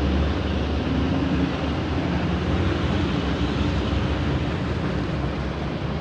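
Steady low machine rumble with a faint hum, unchanging throughout, like a running engine.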